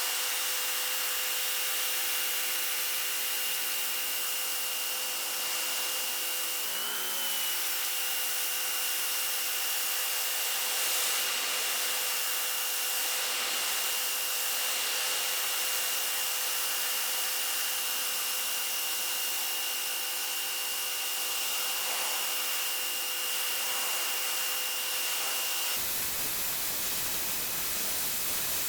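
Electric pressure washer running, its motor giving a steady whine over the hiss of the water spray. The whine wavers briefly about seven seconds in. Near the end it cuts to a plain steady hiss without the whine.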